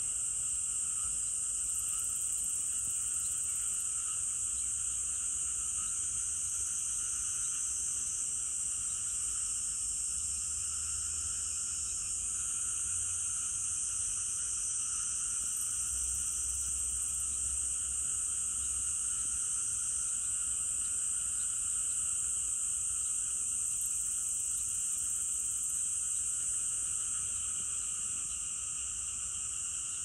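Steady insect chorus: a continuous high-pitched buzz over a fainter, lower buzzing band.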